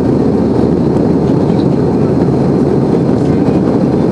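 Steady rumble and rush of a Sukhoi Superjet 100's SaM146 turbofan engines and airflow, heard inside the cabin during the climb after takeoff.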